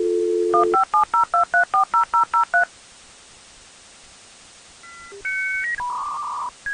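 Telephone line sounds: a dial tone for about half a second, then about ten touch-tone (DTMF) digits dialed quickly, about five a second. After a pause of about two seconds, a run of steady electronic tones that step between different pitches begins.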